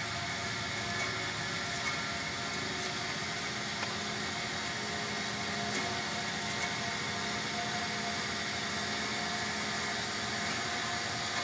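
Alger SJ-1018M horizontal bandsaw with its 2 hp motor running steadily, blade and drive giving a constant hum with a few light clicks.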